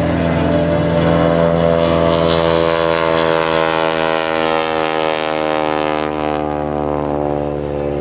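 Modified Stearman biplane's radial engine and propeller running at power on a low pass, the high end strongest for about six seconds, then easing off as it moves away.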